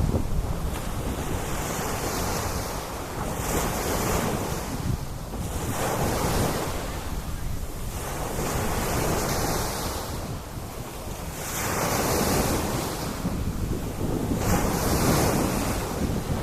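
Sea waves breaking and washing up the beach, the surf swelling and ebbing every two to three seconds, with wind buffeting the microphone.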